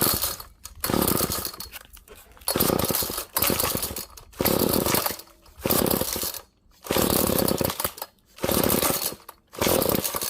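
Recoil starter of a Weed Eater GTI 16D two-stroke string trimmer being pulled over and over, about eight quick pulls, each a short rasping whirr of the rope and the engine turning over. The engine does not catch on the choke, which the owner suspects is flooding it.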